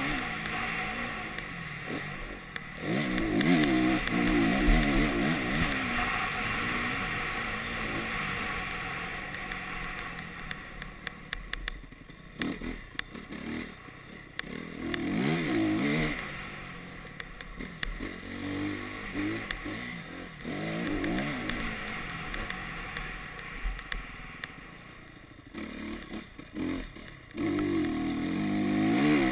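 Honda CRF single-cylinder four-stroke motocross bike being ridden hard, its engine revving up through the gears and dropping back again and again as the throttle is opened on the straights and closed for the corners.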